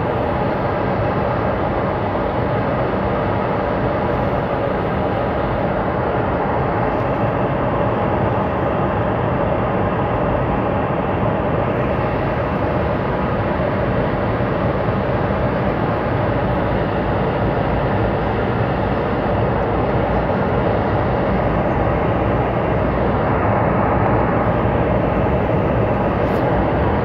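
Boeing 717 cabin noise during the climb after takeoff: a steady, even roar of the jet engines and rushing air heard from a passenger seat.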